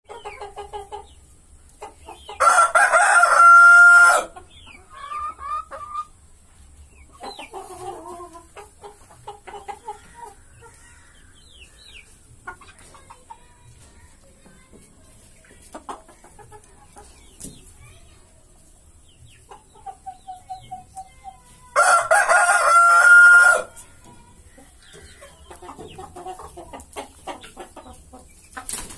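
Rooster crowing twice, about twenty seconds apart, each crow loud and about two seconds long, ending on a held note. Chickens cluck softly between the crows.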